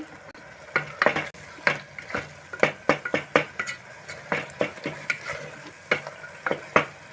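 A spatula stirs and mashes tomato masala in a pot over a high flame. It scrapes and knocks against the pot in an irregular run of sharp strokes, two or three a second, over a light sizzle of frying.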